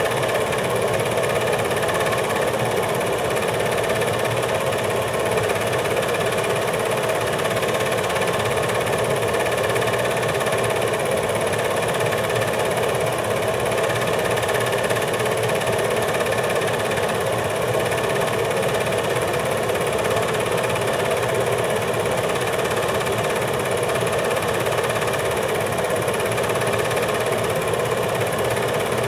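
8mm film projector running with a steady mechanical whir that does not change.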